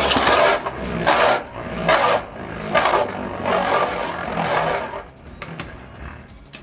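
Spinning Beyblade tops grinding and scraping around a plastic stadium, the noise swelling and easing about once every 0.7 s as they circle and clash. It dies away about five seconds in, leaving a few light clicks as the tops slow.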